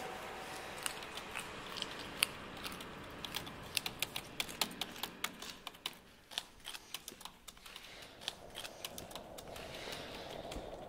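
Keys being pressed on a small keyboard-like device, sharp clicks at uneven spacing, a few a second, some in quick runs.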